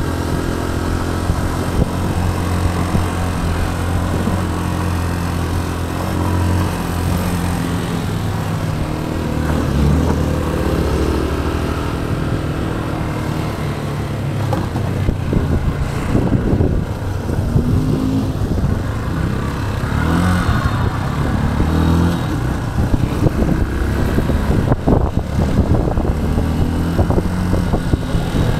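Motorcycle engine running under way, heard from the rider's seat: steady at first, then revving up and easing off through the gears several times from the middle onward, over a steady rush of road noise.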